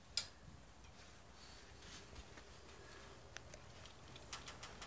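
Faint handling noise at a curtain rod: light rustling of lace curtain and tissue with a few soft clicks from the rod and curtain hooks, and one sharp click just after the start.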